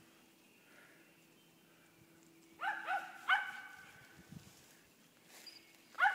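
Carolina cur squirrel dog barking: a quick run of three barks about two and a half seconds in, then one more near the end.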